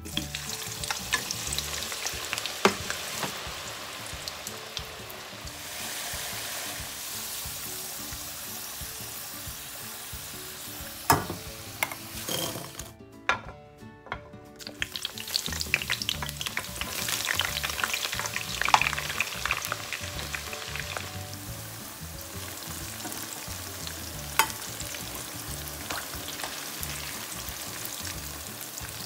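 Potato and eggplant pieces deep-frying in hot oil in a wok: a steady crackling sizzle, with a few sharp knocks and a brief break about halfway through.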